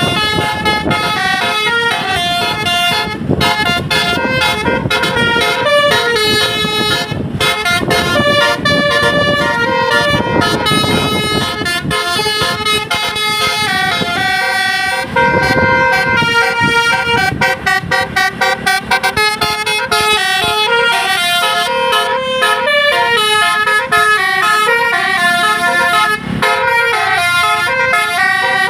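Tour bus basuri horn, a multi-tone musical 'telolet' air horn, playing a fast melody of quick stepped notes that jump up and down, over a low rumble.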